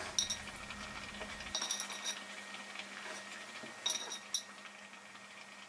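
Stuffed eggplants being set one by one into a large glass jar, making a few light clinks and knocks against the glass around the start, about two seconds in and about four seconds in, with quiet handling in between.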